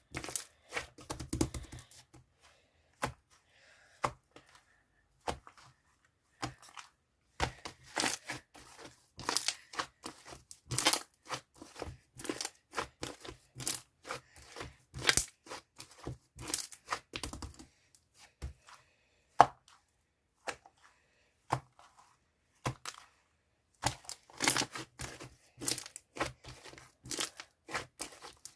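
Chewy yogurt slime being squished and stretched by hand, making irregular sticky pops and crackles in bouts, with a few short quiet gaps between them.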